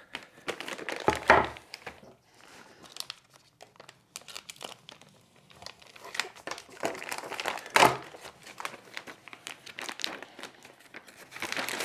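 Clear plastic packaging bag crinkling and tearing as it is opened and pulled off a flat router table top, in irregular crackles with two louder ones, about a second in and near eight seconds.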